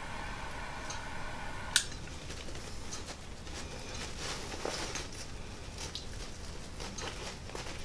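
A steady hum that cuts off with a sharp click about two seconds in, followed by faint scraping, rubbing and small ticks of a metal tool worked against backpack fabric, pressing softened hot glue into the stitching.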